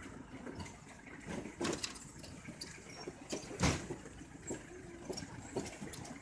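A jeep's engine running as it crawls down a rocky, muddy track, with irregular knocks and crunches of stones; the loudest knock comes about three and a half seconds in.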